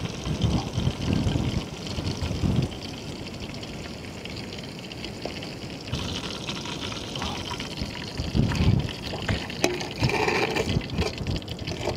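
Fish steaks sizzling and crackling in hot frying oil in an aluminium pot, a steady hiss, with wind rumbling on the microphone in gusts and a few light clicks near the end.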